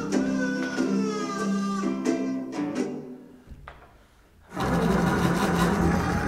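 Improvised string music: plucked notes, one of them sliding down in pitch, die away about three seconds in. About a second and a half later a loud, dense sustained string sound starts abruptly.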